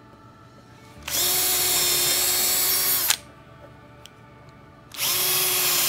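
Cordless electric drill with a 1/8-inch bit pre-drilling pilot holes through a pine board, running in two steady bursts of about two seconds each: the first starts about a second in, the second near the end.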